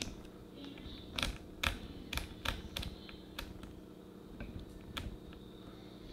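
About a dozen irregular sharp clicks and taps, the kind made by pressing keys or handling small hard objects, over a steady low hum.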